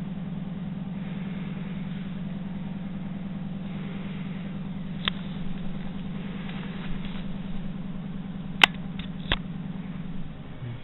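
A steady low hum, with a few sharp clicks, the loudest about eight and a half seconds in; the hum stops near the end.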